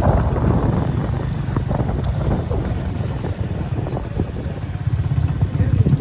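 Motorcycle engine running as it rides along, a steady low rumble, with wind buffeting the microphone.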